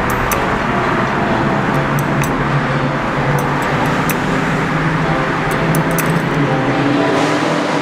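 A car driving through an underground road, heard from inside the cabin: a steady hum of the engine with road and traffic noise.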